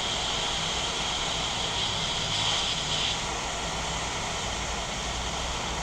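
Hot air rework station blowing a steady rush of air, with a high whine that stops about three seconds in. It is heating a small component on a laptop motherboard to desolder it.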